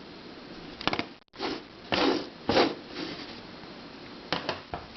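Handling sounds of plastic puzzles being picked up and moved on a shelf: a few light clicks and rustles, with a short break in the sound about a second in.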